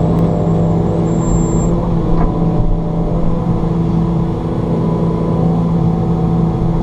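Takeuchi TB290 excavator's diesel engine running at a steady speed, a loud continuous hum.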